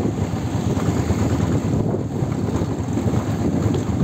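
Steady wind buffeting on the microphone over the low rumble of a moving road vehicle, engine and tyres on the road.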